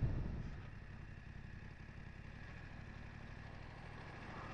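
BMW F900XR motorcycle's parallel-twin engine running at low revs, heard as a faint steady low rumble.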